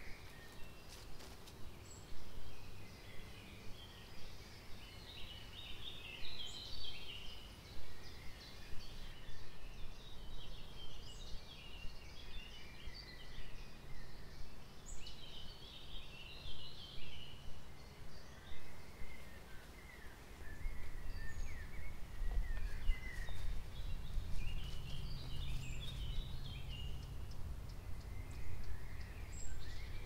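Small songbirds chirping and twittering, many short calls throughout, over a steady low rumble that grows louder about two-thirds of the way through.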